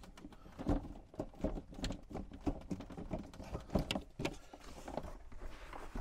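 Handling noise from hoses and fittings on a 12-volt RV water pump: irregular light knocks, clicks and rubbing, a few a second, as plastic hose fittings are hand-tightened onto the pump.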